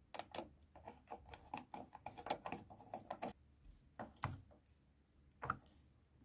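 Flat-blade screwdriver driving a small steel screw into a straight grinder's housing: a quick run of small clicks and scrapes for about three seconds, then a few separate clicks.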